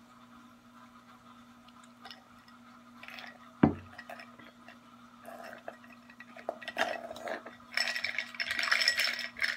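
A drinking glass knocked once on a hard surface, then a plastic straw stirred around inside the glass, clinking and rattling against it more and more busily toward the end.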